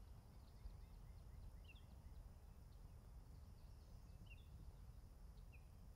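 Near silence: faint outdoor ambience with a low rumble and a few faint, short chirps.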